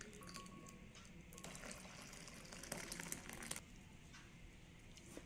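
Thin soup poured from a ladle into a small glass bowl: faint pouring and splashing, busiest for about two seconds in the middle, then settling.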